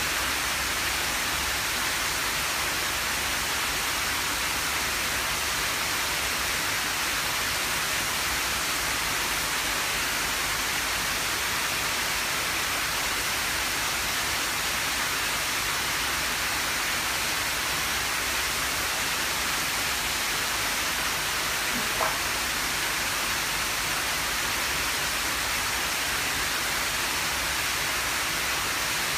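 Steady, even hiss of running water splashing into a koi pond. A brief faint chirp comes about three-quarters of the way through.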